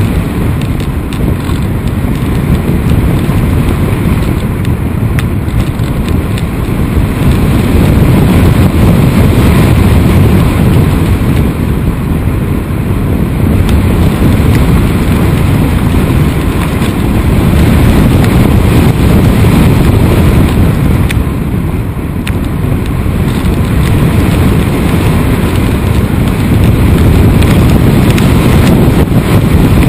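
Wind rushing over the onboard camera's microphone in the cockpit of a foam-board RC airplane in flight, over the steady drone of the plane's propeller motor. The rush is loud and low, swelling and dipping every few seconds.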